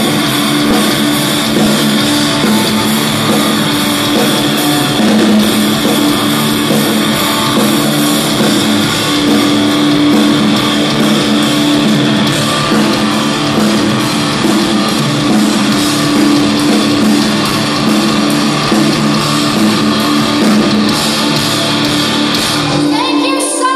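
Live rock band playing loudly: electric guitars over a drum kit, holding steady chords. Just before the end the band's low, heavy sound drops out abruptly.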